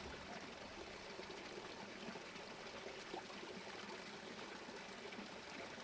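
Faint, steady rush of running water from a stream.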